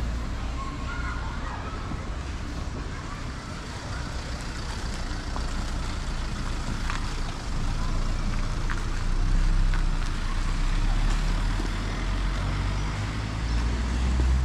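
Street traffic: a motor vehicle's engine running close by, its low hum swelling louder about halfway through.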